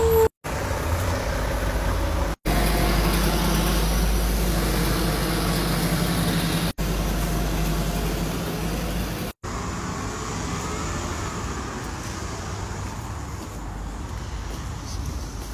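Steady low outdoor rumble of street traffic, cut off abruptly to silence four times for a split second.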